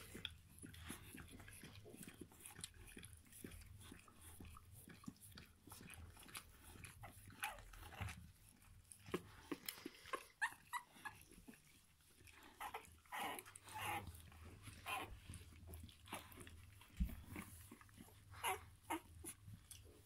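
Australian kelpie bitch licking her young puppy: faint, irregular wet licking and smacking sounds.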